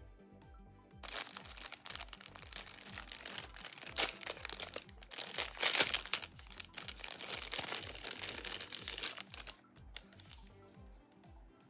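Tissue paper crinkling and rustling as it is pulled out of a box and crumpled by gloved hands, starting about a second in and lasting about eight seconds. A soft background music beat runs underneath throughout.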